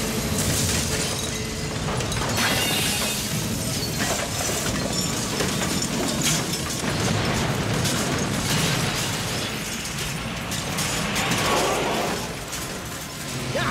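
Crash sound effects of a crane-swung steel container cabin smashing into a building: a long run of crashing metal and clattering debris, made up of many separate impacts.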